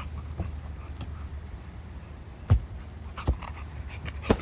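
A few short, sharp thumps, the loudest about two and a half seconds in, over a low steady rumble.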